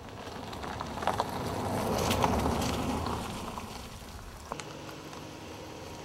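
A vehicle on a gravel road: rushing tyre and engine noise that swells and then fades over about three seconds. Near the end comes a sharp click, then a steady low hum.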